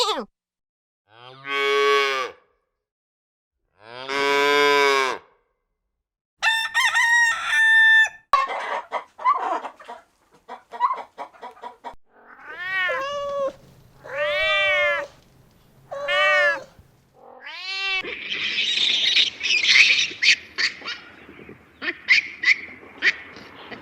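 Farm animal calls: two bleats in the first few seconds, then chickens clucking, a run of four rising-and-falling crowing-type calls about halfway through, and a busy stretch of clucking and high calls near the end.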